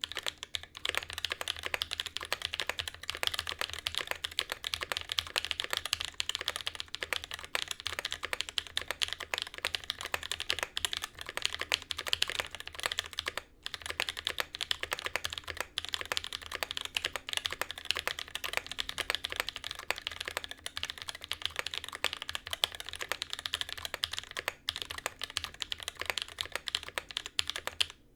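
Continuous fast typing on a custom mechanical keyboard with BSUN Holy Panda tactile switches in an aluminium plate and GMK keycaps, a dense clatter of keystrokes broken by two brief pauses, about halfway and near the end.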